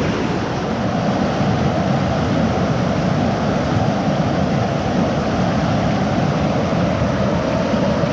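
Mountain creek whitewater rushing over rocks close to the microphone at the lip of a waterfall: a loud, steady, deep rush of water.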